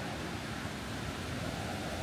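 Tortum Waterfall's falling water making a steady, even rush close to the microphone.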